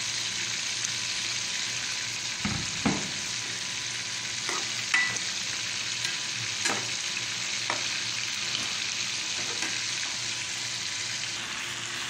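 Sliced sausage and vegetables sizzling in hot oil in an aluminium pot while being stirred, the metal ladle knocking against the pot about half a dozen times.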